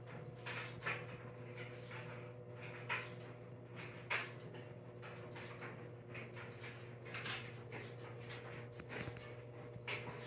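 Steady low electrical hum with scattered light clicks and knocks at irregular intervals.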